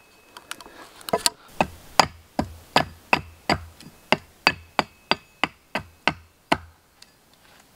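A hand tool striking a wooden post in quick, even blows, about fifteen strikes at nearly three a second, stopping about two-thirds of the way through.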